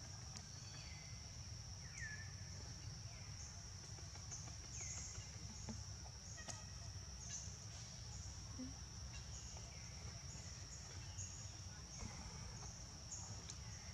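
Steady high-pitched insect chorus, with short falling chirps repeating every second or two over a low rumble.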